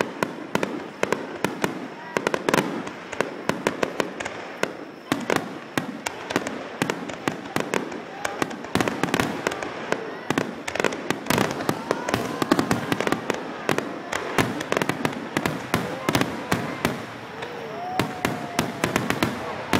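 A star mine of aerial fireworks shells bursting in quick succession: a dense, unbroken string of sharp bangs and crackles, several a second.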